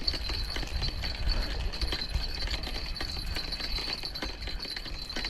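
Outdoor background: a steady high-pitched whine with low rumble and a few faint scattered clicks, no single event standing out.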